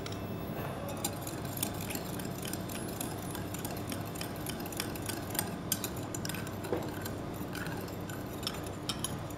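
A metal spoon stirring an oil-and-vinegar dressing in a ceramic bowl, clinking and scraping against the bowl's sides in repeated light, irregular clicks.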